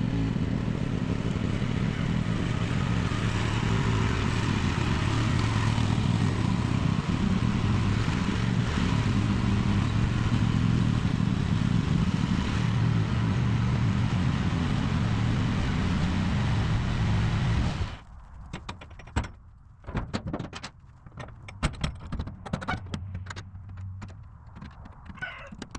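Budget 1-ton mini excavator's small engine running steadily, then shut off abruptly about three quarters of the way in. Scattered clicks and knocks follow.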